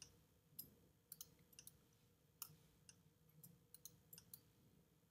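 Faint, irregular clicks of a computer mouse, about a dozen in a few seconds, as anchor points are placed one after another with a pen tool.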